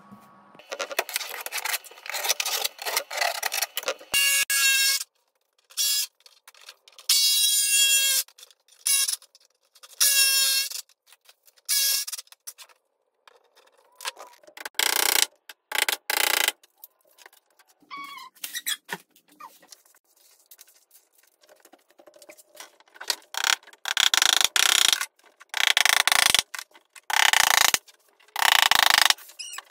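A rapid series of short bursts of power-tool and woodworking noise, each breaking off abruptly; a few of them carry a steady motor whine.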